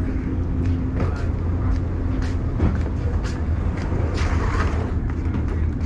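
Steady low hum of a passenger ferry's machinery running at the dock, heard inside the cabin, with a few light knocks.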